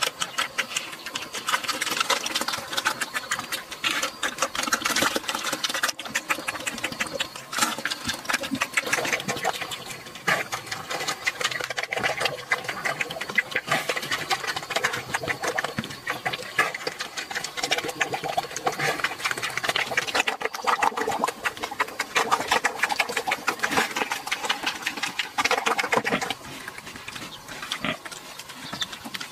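Pigs crunching and chewing dry feed pellets, a dense run of rapid, sharp crunches that grows softer near the end.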